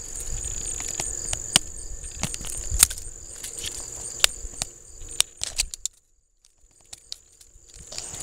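Handling noise from fingers rubbing and tapping against a phone's microphone: scattered clicks and rustling over a steady high-pitched whine, muffled almost to silence for about two seconds near the end.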